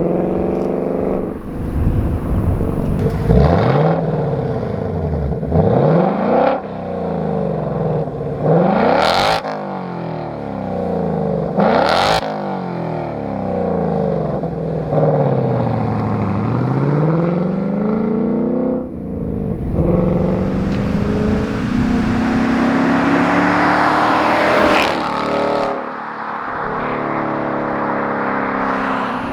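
2024 Mustang GT's 5.0-litre Gen 4 Coyote V8 through a Corsa 3-inch double H-pipe (resonator delete), revved up and falling back again and again, with two sharp cracks about a third of the way in. About two-thirds through, the car pulls hard under a long rising acceleration as it drives past.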